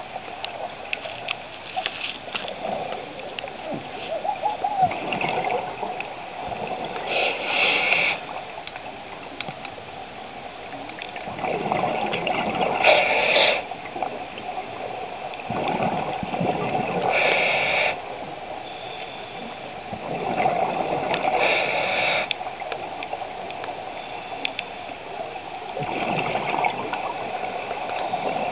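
Scuba diver breathing through a regulator underwater: a hiss on each inhale and a gurgling rush of exhaled bubbles, the cycle repeating about every four to five seconds.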